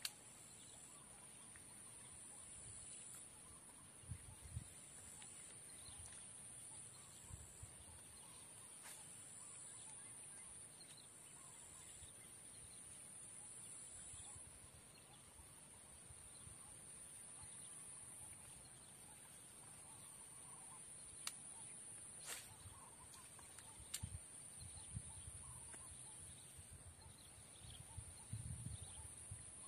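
Faint outdoor swamp ambience, close to silence: a steady high-pitched drone, with a short high note repeating about every second and a half through the first half. A few sharp clicks and soft low thumps come now and then.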